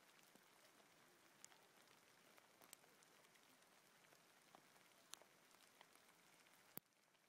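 Hail falling on a forest floor of twigs and debris: a faint steady patter with scattered sharp ticks of single stones landing, the sharpest near the end.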